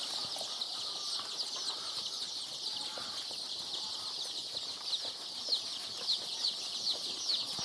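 A large brood of 16-day-old layer chicks peeping constantly: many short, high cheeps sliding downward in pitch and overlapping, with a few louder ones standing out in the second half.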